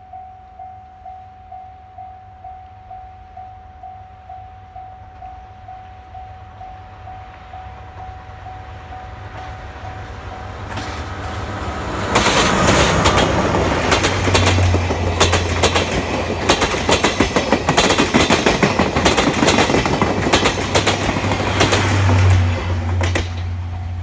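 Level-crossing warning bell ringing steadily at about two strikes a second as a DE10 diesel-hydraulic locomotive hauling passenger coaches approaches. From about twelve seconds in the train passes close by, its diesel engine running and its wheels clattering over the rail joints, and this drowns out the bell. The bell is heard again at the end.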